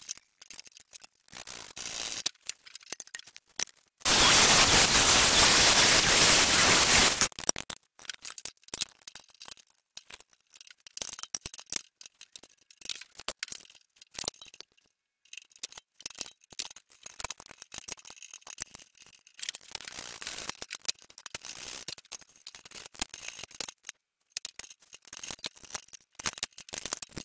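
Metal clinks and rattles of steel exhaust manifold pipes being handled and offered up to the engine, broken about four seconds in by a loud burst of cutting noise, about three seconds long, as the exhaust pipe is chopped.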